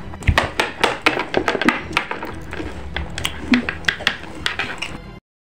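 Plastic toy pet figures being handled and set down on a tabletop: a quick, irregular run of small clicks and knocks, several a second, that stops abruptly just after five seconds.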